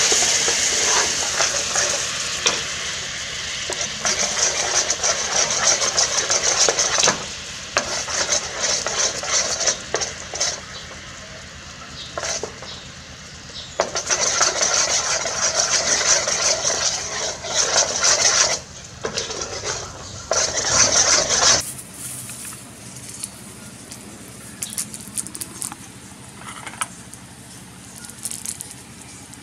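A pot of dark liquid boiling hard, with a steady sizzling, bubbling hiss, while a metal spoon stirs and scrapes against the metal pot. About two-thirds of the way through it drops suddenly to a quieter bubbling with occasional spoon clinks.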